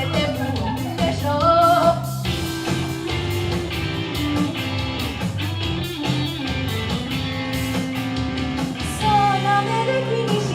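Pop-rock song with guitar and a steady drum beat; a singer's line ends about two seconds in, followed by an instrumental break.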